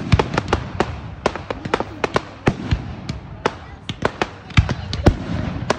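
Aerial fireworks going off: many sharp cracks and pops at an uneven pace, several a second, from crackling shells bursting overhead.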